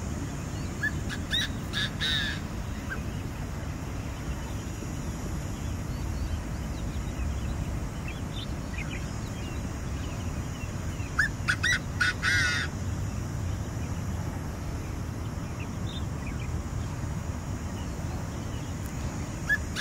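Francolin calling in two bouts of quick, repeated grating notes, a short one about a second in and a longer, louder one about eleven seconds in, over a steady low rumble.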